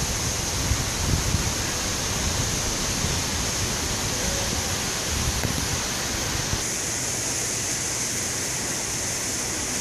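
Big ocean surf breaking and washing in, a steady roar of water with low rumbling that stops abruptly about two-thirds of the way through, leaving a high hiss.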